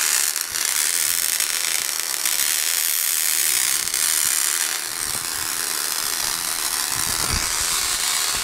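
Small Tesla coil running, its sparks giving a steady high-pitched buzzing hiss. A few dull low bumps come near the end.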